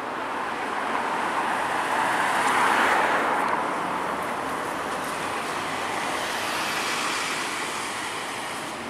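Street traffic noise as a Scania N230UD East Lancs Olympus double-decker bus drives toward the camera. A car passes close by, loudest about three seconds in.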